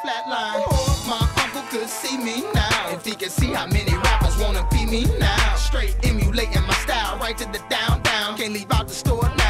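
Hip hop background music with rapped vocals over a steady beat; a deep bass line comes in about four seconds in and drops out briefly near the end.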